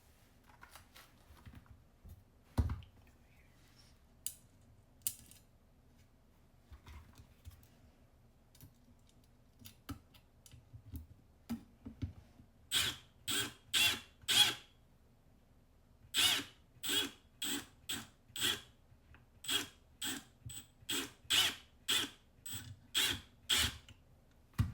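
A single thump a few seconds in, then runs of sharp, evenly spaced mechanical clicks, about two a second, in the second half.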